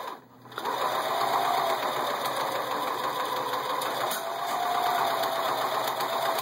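Sewing machine running steadily at stitching speed, its motor whine drifting slightly up and down. It starts about half a second in.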